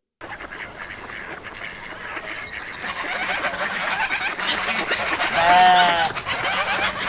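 A flock of geese calling, many overlapping honks and cackles that build up in loudness, with one loud honk about five and a half seconds in.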